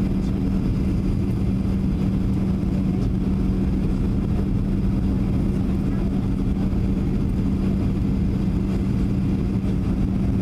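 Cabin noise inside a Boeing 737-700 descending on approach. The CFM56-7B engines and the rushing airflow make a steady roar with a constant low hum.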